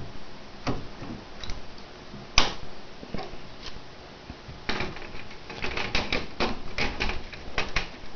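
Clicks and rattles of plastic and metal as hands handle the front drive bays and bezel of a Dell PowerEdge 1800 tower server: a sharp click a little over two seconds in, then a quick run of clicks in the second half.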